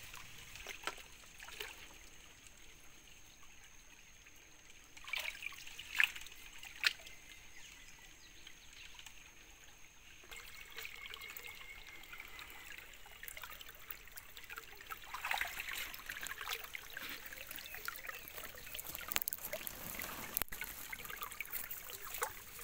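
Shallow, muddy creek water trickling, with a few sharp splashes about five to seven seconds in and busier splashing and sloshing later as the water is worked by hand and gold pan.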